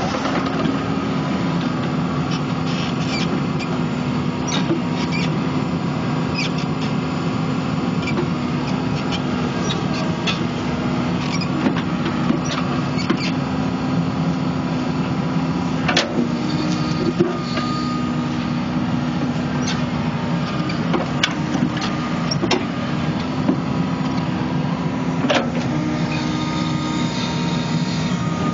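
New Holland Kobelco E80B midi excavator's diesel engine running steadily while the machine digs, with scattered sharp clanks and knocks from the working bucket and arm. The loudest knocks come about halfway through and again near the end.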